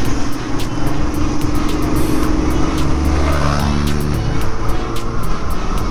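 Motorcycle engine running at road speed, with background music mixed over it.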